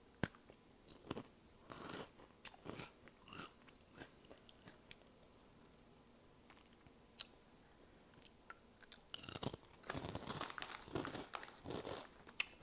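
Close-up crunch of a Hot Cheeto being bitten, with a sharp snap at the start, then crunching and chewing it. Near the end comes a denser stretch of crinkling from the Cheetos bag as a hand reaches in.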